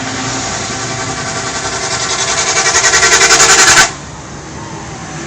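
Bus engine running close by with a rapid rhythmic pulsing that grows louder, cutting off abruptly about four seconds in.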